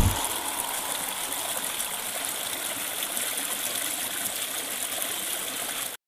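Small rocky stream cascading over stones: a steady, even rush of flowing water.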